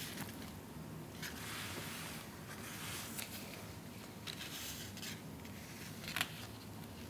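Paper pages of a softcover photobook being turned and handled: a few soft rustles and brushes, the sharpest about six seconds in.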